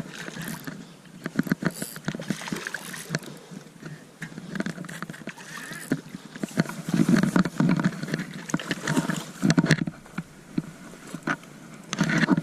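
A hooked bass splashing and thrashing at the water's surface as it is reeled in close, in a run of irregular splashes and knocks that grows busiest and loudest past the middle.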